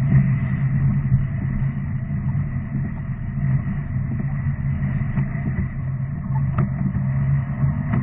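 Car engine and road noise, a steady low hum while driving.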